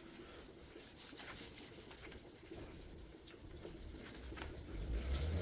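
Hand wet-sanding a car fender's paint with 800-grit wet-and-dry paper on a sanding block: a faint rubbing and scratching, with a low rumble growing near the end.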